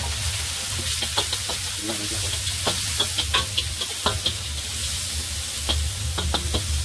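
Shrimp and garlic sizzling in hot oil in a metal wok, stirred with a slotted metal spatula that scrapes and clicks irregularly against the pan.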